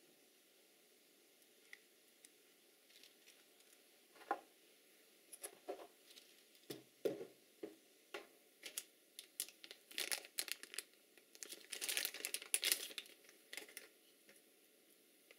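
Plastic packaging crinkling and rustling, with light clicks and taps, as the camera and its bagged accessories are handled. It starts about four seconds in and is busiest near the end.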